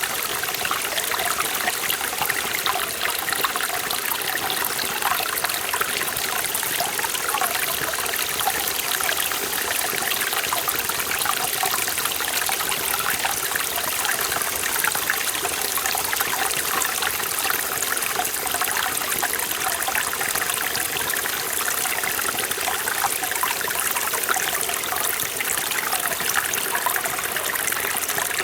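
Mountain stream in a forest valley, water running and splashing over rocks in a steady, unbroken rush with a fine bubbling texture.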